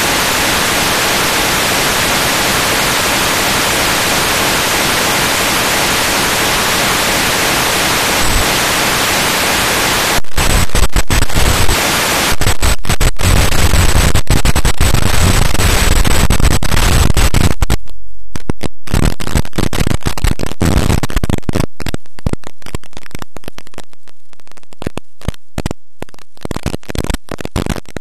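White-noise static from a Hauppauge HVR-955Q analog TV tuner's audio on a weak channel with no sound carrier. It is a steady hiss for about ten seconds, then turns louder and choppy, cutting in and out more and more often with gaps of silence as the signal comes and goes.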